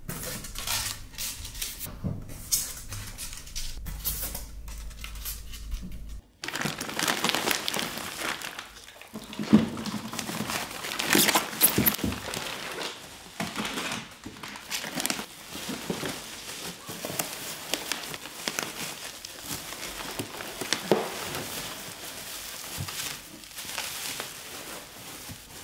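Plastic bags crinkling and rustling as bagged packages and ice packs are handled and lifted out of styrofoam boxes, with scattered knocks and scrapes against the boxes.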